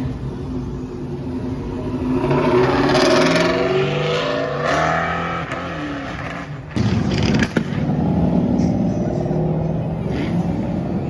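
Performance car engines revving as cars accelerate past, the pitch swelling and sliding over a few seconds. About two-thirds of the way through, an engine comes in suddenly louder and keeps running hard.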